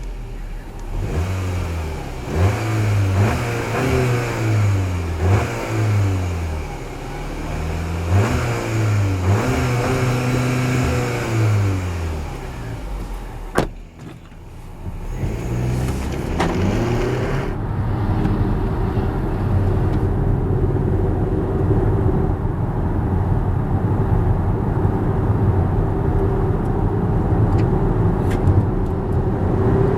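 Skoda Superb 4x4's engine under hard acceleration, rising in pitch and dropping back at each upshift, with several quick gear changes in a row. After a click and a brief dip about halfway through, it settles into a steady high-speed drone with road and wind noise.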